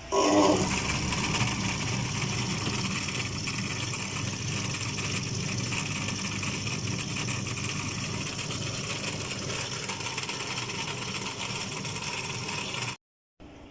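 Small electric motor of a coil-winding machine running steadily while winding copper wire for a ceiling fan's stator coils. It starts abruptly and cuts off shortly before the end.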